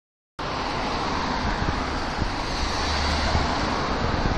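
Street traffic noise: cars on a town road, a steady rush with a low rumble that grows louder for about a second in the middle. It starts abruptly about half a second in.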